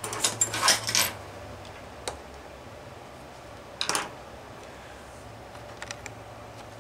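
Small metal engine parts handled by hand: a cluster of light clicks and scrapes in the first second, a single click about two seconds in, a short scrape near four seconds and faint ticks near the end. The HP 21 VT's rotary-valve drive gear is being worked off so it can be re-meshed, because the valve timing is one tooth off.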